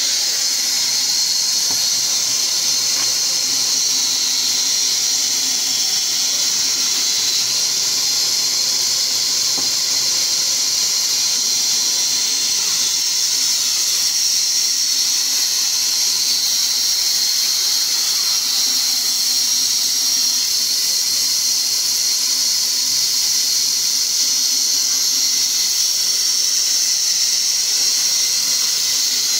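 Large vertical band saw ripping a log lengthwise: a steady high-pitched whine and hiss of the blade cutting through the wood.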